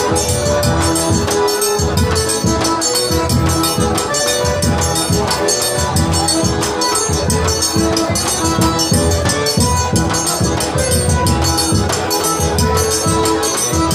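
Live forró trio playing an instrumental passage: accordion holding the melody and chords over a steady beat of zabumba bass drum and a bright, quick triangle rhythm.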